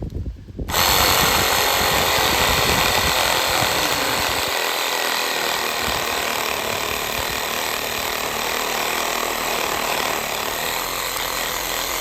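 Budget reciprocating saw starting about a second in and running steadily, its blade cutting through a branch, until it stops right at the end.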